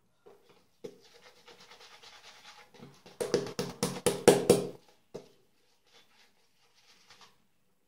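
Kent BK8 shaving brush scrubbing lather onto the face. A quick run of soft bristle swishes is followed, about three seconds in, by about seven louder brisk strokes, then fainter strokes near the end.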